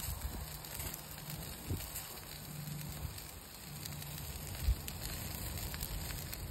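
Skewered chicken wings sizzling over hot lump charcoal on a grill: a steady soft hiss with a few faint crackles and pops.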